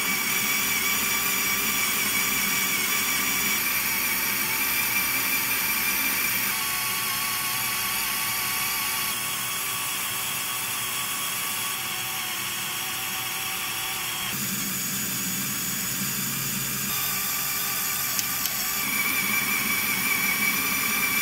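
Motor-driven Lego Technic gearbox running, its plastic gears and differentials turning with a steady mechanical whine and whirr. The pitch and mix of the whine change abruptly every few seconds.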